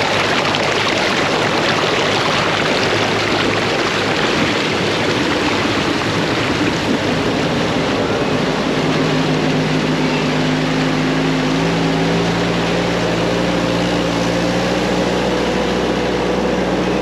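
Four-wheel-drive ute pushing through deep floodwater: a loud, steady rush of water and engine noise, with the engine note slowly rising in the second half.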